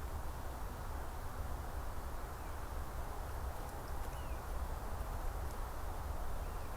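Outdoor forest ambience: a steady rushing noise with a low rumble, and a few faint short bird chirps scattered through it.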